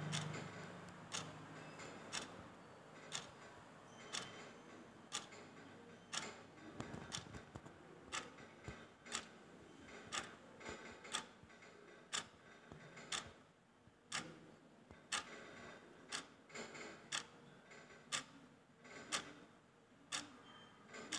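Large land snail rasping and biting at leaves: sharp, crisp clicks about once a second.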